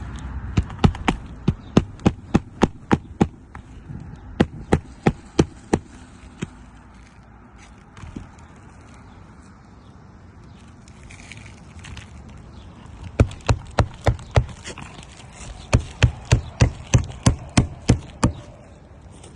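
Nails being driven into new roof shingles: runs of sharp, evenly spaced strikes, about three a second, with a pause of several seconds in the middle.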